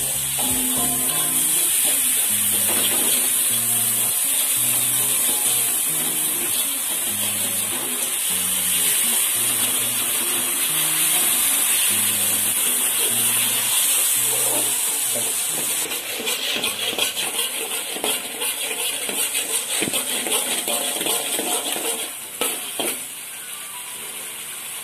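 Background music over the steady sizzle of chilli paste frying in a metal wok. About sixteen seconds in the music drops away, leaving the sizzle and a spatula scraping and tapping against the wok.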